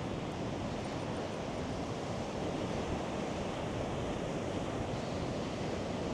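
Choppy sea surf mixed with strong wind rushing over the microphone, a steady noise without breaks.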